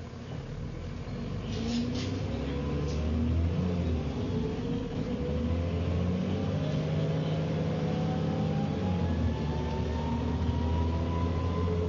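Dennis Trident double-decker bus pulling away and gathering speed, with the engine's low drone underneath. Over it a whine from the rear axle climbs steadily in pitch as road speed builds: the bus's well-known axle noise, heard from inside the bus.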